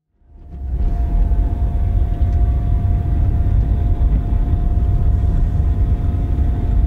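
Deep, steady rumble of engine and road noise inside a moving Vauxhall car's cabin, fading in from silence during the first second, with a faint steady whine above it.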